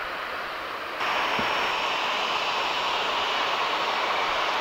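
Steady jet engine noise from airliners. About a second in it steps up abruptly to the louder, closer rush and faint high whine of a Boeing 737-800's CFM56 turbofans on the runway.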